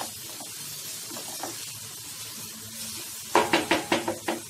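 Spinach curry sizzling in a non-stick pan while a wooden spatula stirs it. Near the end there are about five quick knocks as the spatula strikes the pan.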